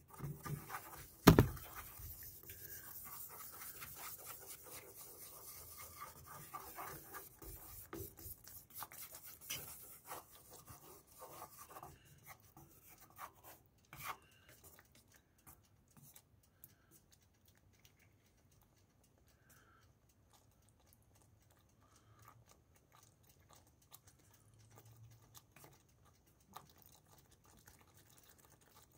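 Wooden utensil scraping and knocking against a nonstick frying pan while stirring meatballs in thick tomato sauce, with a sharp knock about a second in. The scraping is busy for about the first twelve seconds, with another knock a couple of seconds later, then dies down to faint occasional stirring.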